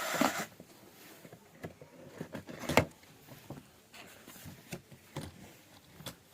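Handling noises from unboxing a toy: scattered light clicks and taps, with one sharper knock a little under three seconds in. A steady pitched sound cuts off just after the start.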